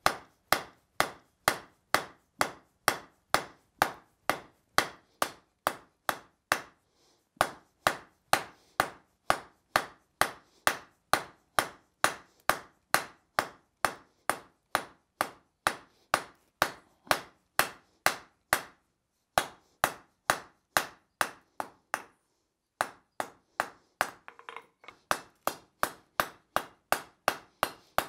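Blacksmith's hand hammer striking the red-hot end of a steel bar on an anvil, drawing it out to a point. The hammer blows come in a steady rhythm of about two a second, broken by three short pauses.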